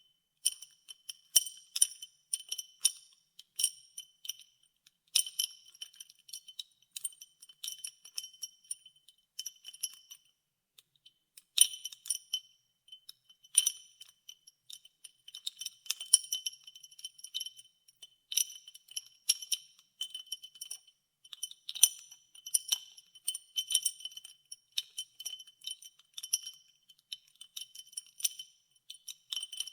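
Ice cubes clinking against a glass as ice water is stirred: irregular clinks several times a second, each ringing on at the same few high pitches, a few sharper knocks standing out.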